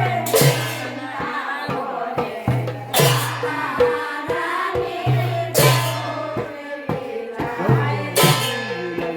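Sylheti dhamail folk song: voices singing a melody over a drum beating a steady rhythm, with a cymbal crash about every two and a half seconds.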